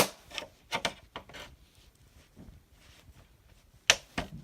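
Sharp plastic clicks and snaps as a flathead screwdriver pries the plastic back panel of an LG monitor off its retaining clips: a snap at the start, a few softer clicks over the next second or so, and a louder snap near the end.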